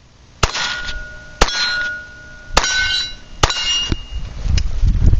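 Four sharp metallic clangs about a second apart, each leaving a short ringing tone, as of struck steel. Wind noise on the microphone builds near the end.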